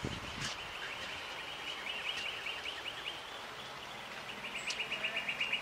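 A small songbird trilling: a fast string of short, high notes, about ten a second, at one steady pitch, fading in the middle and coming back stronger near the end.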